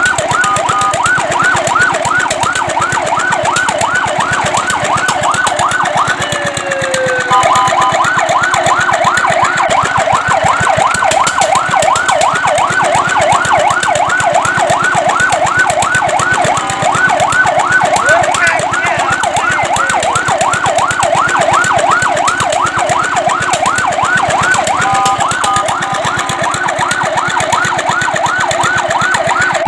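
Fire truck's electronic siren in a fast yelp, sweeping up and down in pitch several times a second. It briefly switches to a steady tone twice, about seven seconds in and near the end.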